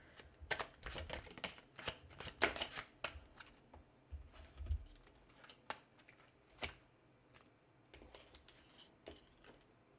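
Tarot cards being handled: drawn from the deck and laid down onto a spread on the table, a scatter of short card clicks and taps with a few soft thumps. The handling is busiest in the first three seconds and sparser after.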